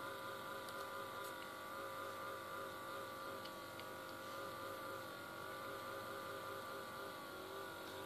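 Faint steady whir and hum of a running laptop, holding several steady tones, with a few faint clicks.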